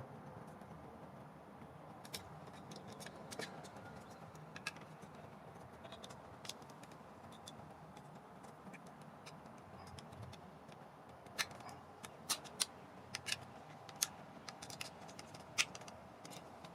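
Faint handling of the doorbell wires being fastened to the Reolink doorbell camera's terminals: scattered small clicks and scratches, then a run of sharper clicks over the last few seconds.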